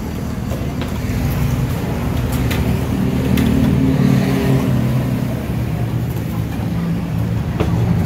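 Steady low rumble of a busy open-air food stall, with a few sharp clinks of metal ladles and pots scattered through it.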